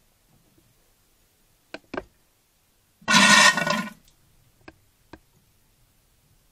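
Mixer tap being worked: a couple of short clicks, then a loud honking squeal about a second long as the water is turned on, followed by two more clicks.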